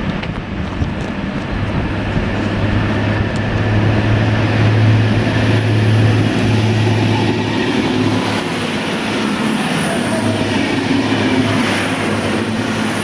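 Diesel train running along the track: a steady low engine hum over rolling rail noise, growing louder over the first few seconds and then holding.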